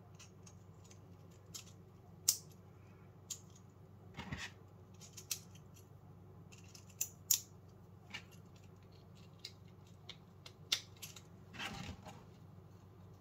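Green 3D-printed plastic parts of an AMS Saver snag cutter being handled and pressed together by hand. There are scattered sharp plastic clicks as the pieces snap into place, and two short scraping slides, one about four seconds in and one near the end.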